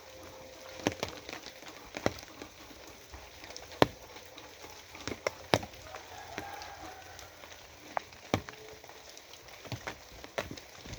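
Rain falling as a steady hiss, with irregular sharp taps of single heavy drops striking a hard surface.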